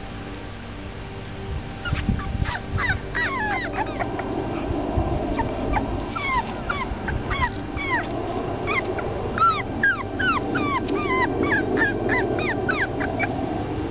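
Five-week-old beagle puppies yipping and whimpering: a string of short, high, falling yelps, about two a second, starting about two seconds in.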